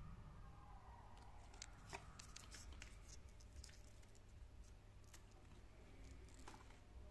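Faint handling noises: scattered small clicks and scratchy rustling as the Casio A168 watch and its packaging are handled, over a low steady hum.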